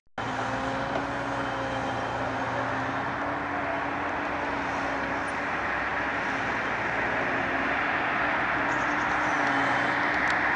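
Liebherr A316 wheeled excavator's diesel engine running steadily: a held engine hum over a broad rushing noise, gradually getting louder.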